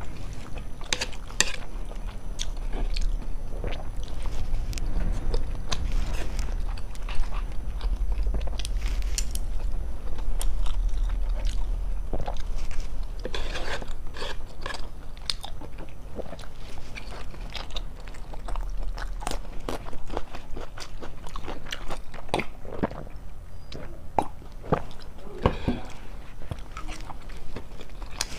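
A person eating close to the microphone: chewing and biting with many small wet mouth clicks and smacks, over a low rumble for much of the first twenty seconds.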